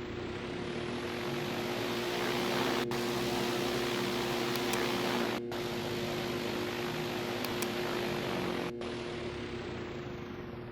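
Ceiling fan running: a steady whir of air from the spinning blades over a constant motor hum, swelling over the first couple of seconds and easing off near the end.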